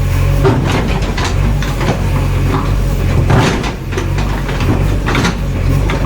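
Diesel engine of a JCB 3DX backhoe loader running steadily while working, with irregular metallic clanks and knocks from the machine over it.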